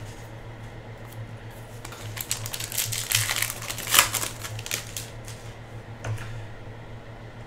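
Foil wrapper of a trading card pack crinkling and tearing as it is opened by hand: a run of crackles beginning about two seconds in and lasting about three seconds, loudest near the middle. A low steady hum sits underneath.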